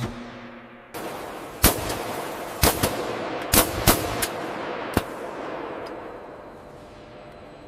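Gunfire: about seven sharp shots at uneven spacing over some three seconds, each with an echoing tail, over a rushing background that fades away after the last shot.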